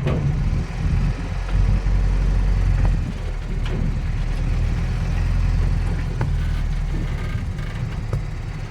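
Diesel engine of heavy construction machinery running steadily with a deep rumble, with a few sharp knocks over it.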